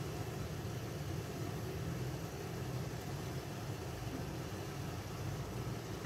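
Kitchen range hood exhaust fan running with a steady low hum and airy hiss.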